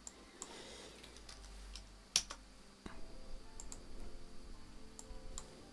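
Faint, scattered clicks of a computer keyboard and mouse as values are typed into the software, a handful of separate keystrokes spread out with pauses between them.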